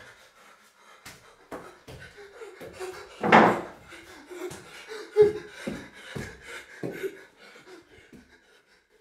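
Bare feet thumping on a tiled floor as a man hops and leaps across a room, with one louder breathy burst about three seconds in and a run of sharper thumps a couple of seconds later.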